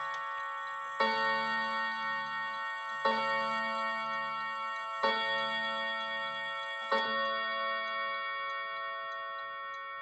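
German Art Deco triple-chime clock striking four times, about two seconds apart, each blow ringing on and dying away slowly. The movement's ticking shows through near the end as the last strike fades.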